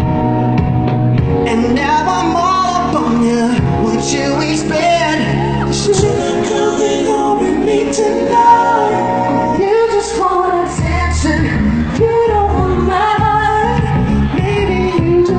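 A pop song sung into a microphone over a backing track, played loud through a sound system.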